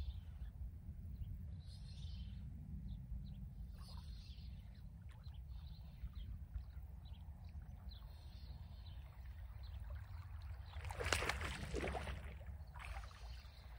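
Wind rumbling on the microphone with faint scattered clicks, and about eleven seconds in a brief, louder splash of water: a hooked bass thrashing at the surface as it is brought in.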